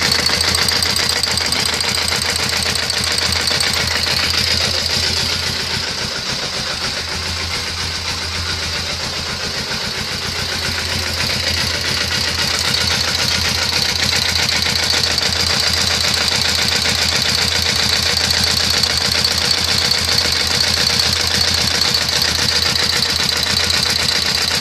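Suzuki GS500's air-cooled parallel-twin engine idling warm, with a fast light ticking from the top of the cylinder head that keeps pace with engine speed. The tick is a noise that only appears once the engine is hot.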